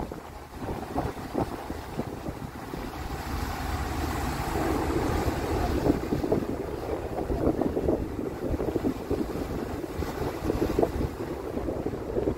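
Wind buffeting the microphone out at sea, louder from about four seconds in, over a steady low rumble and the wash of choppy water.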